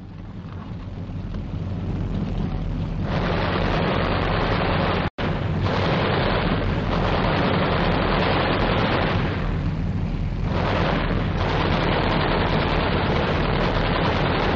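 Old field recording of street fighting: British Churchill tanks' Besa machine guns and small-arms fire over a continuous low rumble of tank noise, swelling in over the first few seconds and surging in waves. A split-second gap in the recording about five seconds in.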